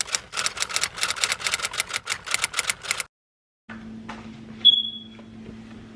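Rapid, even clicking like typewriter keys, about eight clicks a second for some three seconds, then cut off; about a second later a single sharp click with a short high ring, like a typewriter bell.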